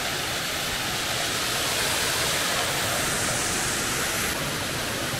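Small cascading waterfall and stream running over rocks: a steady rush of water.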